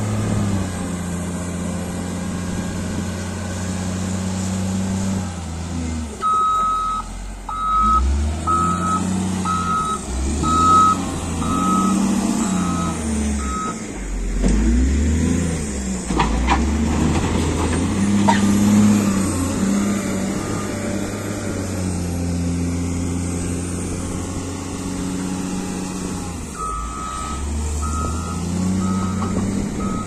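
Caterpillar 950 wheel loader's diesel engine running and revving up and down as the loader works. Its reversing alarm beeps about once a second in two runs, one from several seconds in and another near the end, and there are a few sharp knocks in the middle.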